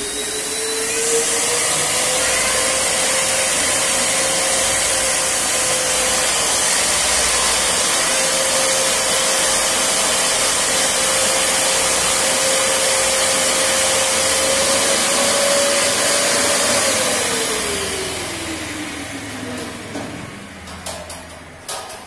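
Clif wet/dry vacuum cleaner's motor spinning up with a rising whine, then running steadily with a loud hiss of air as it draws muddy water up its hose. It is switched off about 17 seconds in and winds down with a falling whine, followed by a few clicks near the end.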